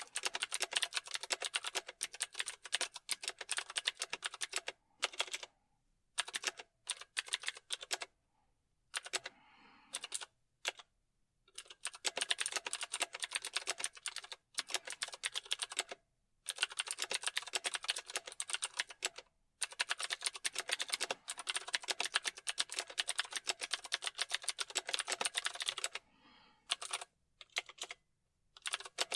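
Typing on a computer keyboard: runs of rapid key clicks broken by several short pauses.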